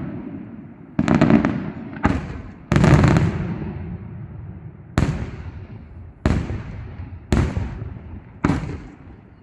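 Aerial firework shells bursting one after another: about seven sharp bangs in nine seconds, each followed by an echo that fades away.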